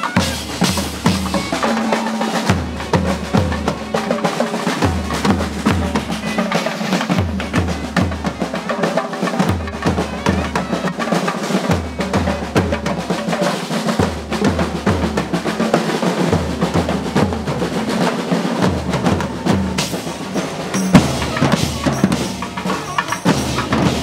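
Drum ensemble of snare drums, bass drums and a drum kit with cymbals playing a fast rhythm together, loud, with low drum strokes falling in a repeating pattern.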